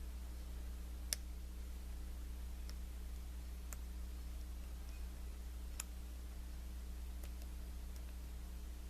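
A lock pick working the pins of a Lockwood 334B45 high-security padlock makes a few sharp, irregular clicks a second or more apart. The loudest comes about a second in, over a steady low hum.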